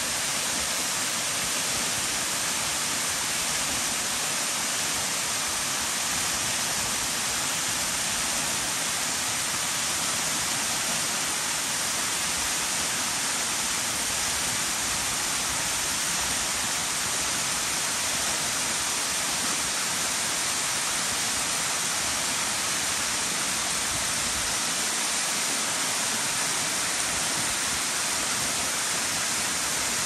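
Waterfall spilling in thin streams down a broad sloping rock face: a steady, unbroken rush of falling and splashing water, mostly a bright hiss with little deep rumble.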